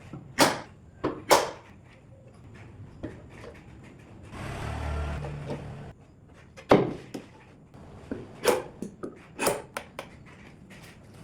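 A series of sharp wooden knocks and clunks at irregular intervals, with a rough scraping slide lasting about a second and a half partway through: wooden parts being handled and set in place on a wooden trim-router table.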